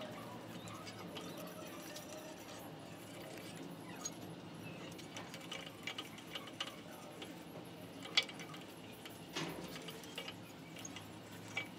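Light clicks and taps of a carved wooden elephant and a small brush being handled on a wooden workbench, over a steady low background hum; the sharpest click comes about eight seconds in.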